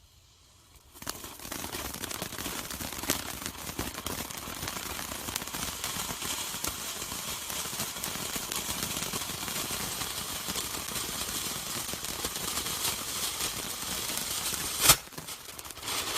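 Golden Flower Blossom firework fountain by Cutting Edge bursting into life about a second in and spraying with a continuous hissing crackle and scattered pops. One loud sharp bang sounds near the end.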